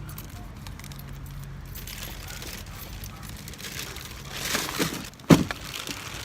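A low steady hum with some rustling, and one sharp knock a little past five seconds in.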